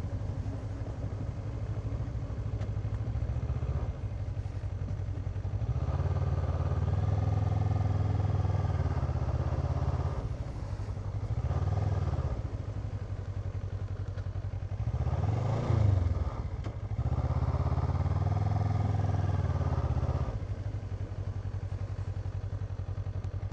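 Kawasaki Ninja 650R parallel-twin engine running at low speed on a gravel road. The revs pick up about six seconds in, rise and fall briefly twice in the middle, then ease back lower near the end.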